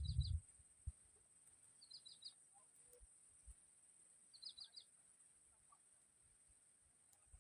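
A small bird calling faintly: a quick run of about four short notes, repeated twice more at intervals of about two and a half seconds. A faint steady high hiss runs underneath.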